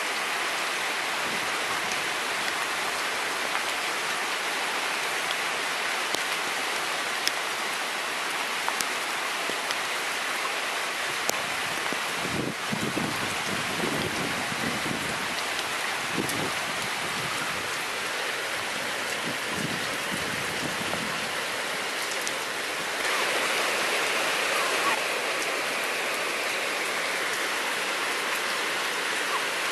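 Steady rain hissing as it falls on grass, puddles and a wet walkway during a thunderstorm, with scattered sharp drop ticks. It grows a little louder about two-thirds of the way through.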